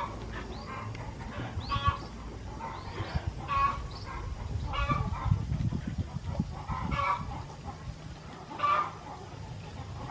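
Chickens clucking: short calls recurring every second or two, some louder than others.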